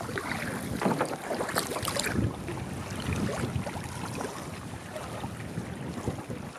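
Choppy lake water splashing and lapping against a canoe hull as it is paddled, with wind buffeting the microphone; a few louder splashes come in the first two seconds.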